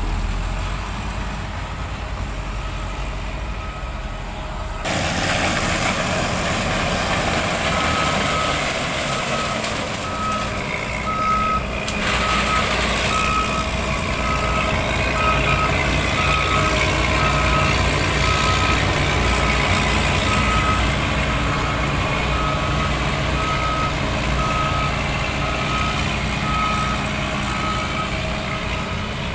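A heavy vehicle's reversing alarm beeps at an even pace over its running diesel engine. The engine and rumble noise get louder about five seconds in.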